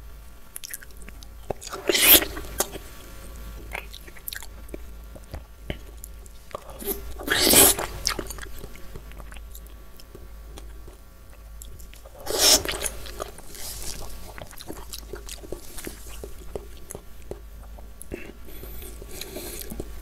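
A person biting into a halved gold kiwi and chewing it. Three loud wet bites come about five seconds apart, with quieter chewing between and after them.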